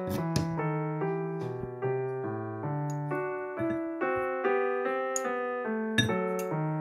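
Piano music playing a gentle run of single notes and chords, with a few light clicks over it.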